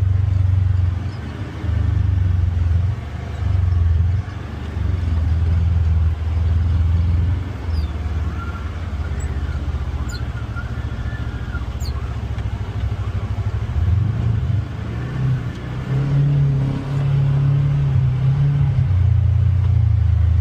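Polaris Xpedition UTV engine running at low speed with a deep, steady drone, swelling and easing every second or two as the throttle is worked over rough ground.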